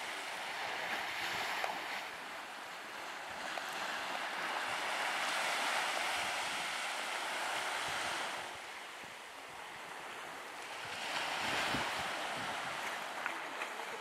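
Small waves washing onto a sandy beach, a soft hiss that swells and fades every few seconds.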